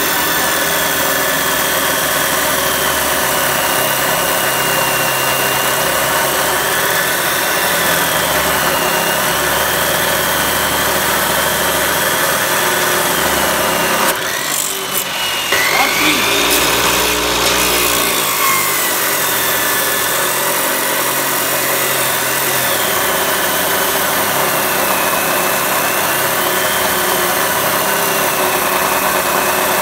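Electric abrasive chop saw with a 14-inch (355 mm) Saitej metal-cutting wheel grinding through a metal bar, a steady loud grinding with a high whine that wavers in pitch as the feed pressure changes. The sound changes briefly about halfway through, then settles back into the same cut.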